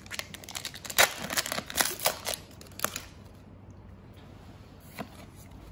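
Foil wrapper of a Pokémon trading-card booster pack crinkling and tearing as it is opened, with cards rustling: a dense run of sharp crackles in the first three seconds, then quieter, with one click near the end.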